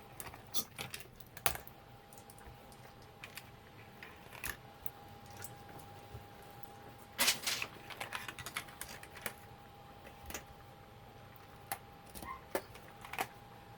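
Small plastic parts of an old label maker being handled during disassembly: scattered light clicks and taps, with a louder clatter about seven seconds in, over a faint steady tone.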